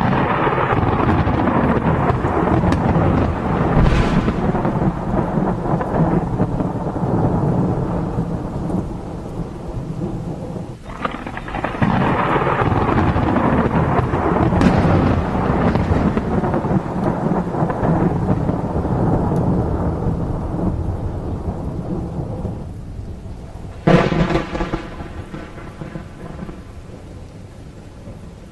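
Thunderstorm: thunder rolling over steady rain, a long rumble, then a new roll beginning about eleven seconds in, and a sharp crack near the end that dies away, leaving the rain.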